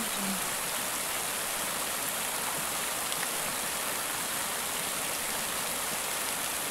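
Small waterfall pouring onto rocks: a steady, even hiss of splashing, churning water.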